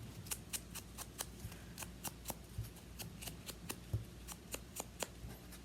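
A paper edge being distressed with distress ink: quick, uneven small clicks and taps, several a second, as the paper is worked over.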